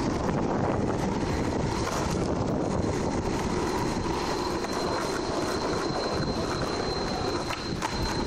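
Skateboard wheels rolling over asphalt: a steady, rough rumble, with a couple of faint clicks near the end.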